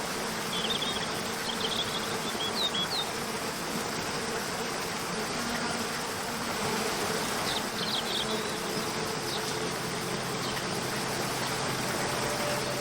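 Steady rush of a waterfall, with two brief clusters of short high chirps and soft, sustained background music tones underneath.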